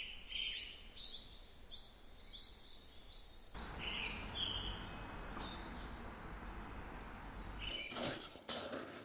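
Small birds chirping, a quick run of short rising notes, several a second, over a steady outdoor hum. About eight seconds in, a plastic scoop digs into dry cat kibble, the pellets rattling and crunching.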